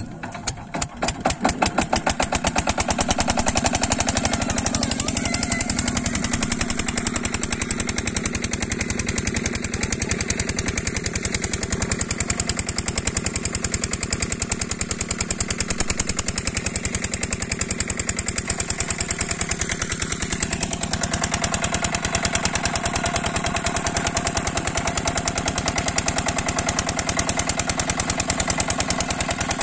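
Single-cylinder 8 hp diesel water-pump engine catching in its first second or two and settling into a steady, rapid, even thudding run as it drives the pump.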